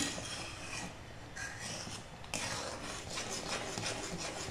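Metal ladle stirring thick simmering lemon pickle in a metal kadhai: soft scraping with many small irregular clicks, starting a little past halfway.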